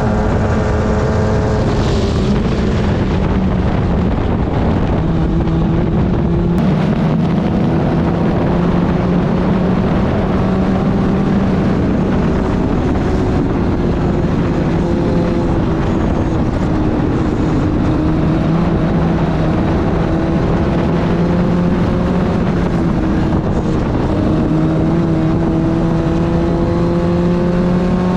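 Club Ford open-wheel race car's engine running hard at high revs on track, its pitch dropping briefly a few times, around two seconds in, midway and about four-fifths of the way through, and climbing again each time.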